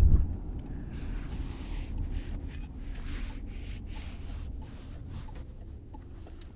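Low rumble of a moving car heard from inside the cabin, with a thump right at the start. From about a second in, a breathy hiss comes and goes two or three times a second for a few seconds, then fades.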